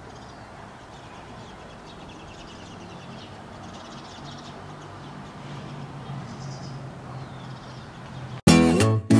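Faint outdoor background with soft bird chirps, then strummed acoustic guitar music starts suddenly and loudly near the end.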